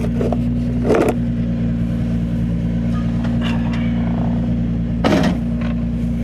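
Nissan 350Z's 3.5-litre V6 idling steadily, with two brief knocks about a second in and again near five seconds.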